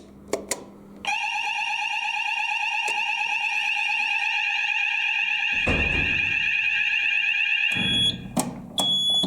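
Electronic fire alarm sounder being tested: it comes on about a second in with a continuous shrill tone with a fast warble, sounds for about six and a half seconds and cuts off. Clicks and two short high beeps follow near the end.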